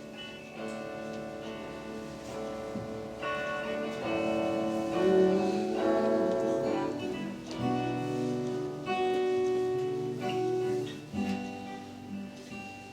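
Instrumental interlude of a worship song: chords on guitar changing every second or two, with no singing.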